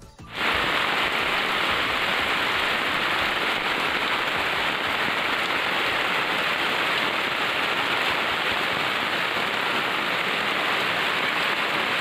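Steady rain falling, an even hiss that starts abruptly a moment in.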